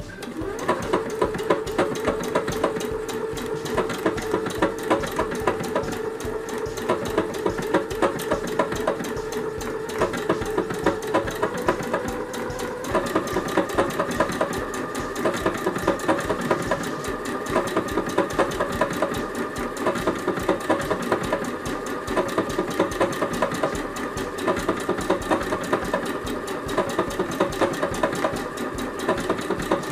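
Singer Confidence computerized sewing machine stitching a decorative stitch (stitch 71) through fabric: a steady motor hum under rapid, even needle strokes. The pitch of the hum shifts about twelve seconds in.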